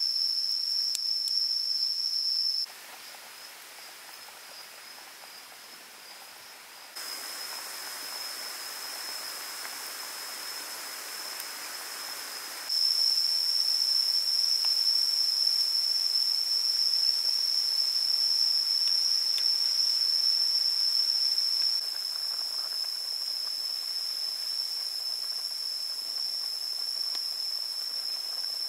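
A steady, high-pitched insect drone over a soft hiss. The drone nearly drops out about three seconds in and comes back strongly about thirteen seconds in.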